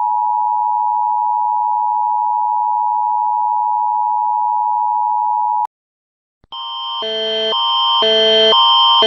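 Emergency Alert System attention signal: a steady two-note tone that cuts off after about five and a half seconds. After a short gap, a loud alarm of two alternating chords, switching about twice a second, fades in.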